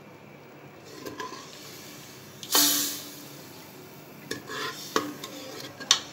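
Metal spoon stirring raw chicken pieces into hot oil and spices in a pressure-cooker pot. About two and a half seconds in there is a loud, brief burst of sizzling and scraping, and near the end the spoon clinks sharply against the pot three times.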